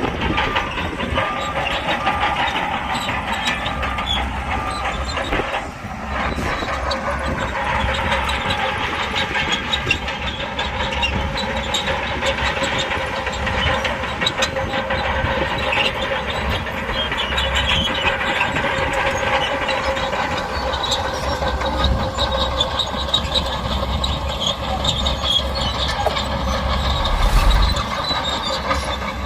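Crawler bulldozer working: its diesel engine running under a steady metallic whine, with the steel tracks clattering continuously as it moves.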